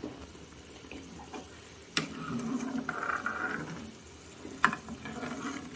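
Tomato gravy bubbling in a kadhai while a metal ladle stirs it, with two sharp clinks of the ladle against the pan, about two seconds in and again after about four and a half seconds.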